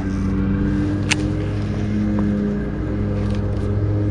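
A small motor running steadily: a low, even drone made of several stacked tones, with one sharp click about a second in.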